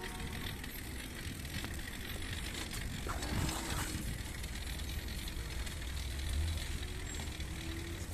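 BMX bike being ridden: a steady low rolling rumble with a few light clicks and knocks from the bike.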